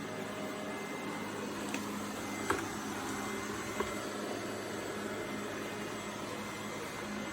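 HONITURE G20 Pro robot vacuum cleaner running with a steady motor hum, with a few light clicks or knocks about two, two and a half and four seconds in.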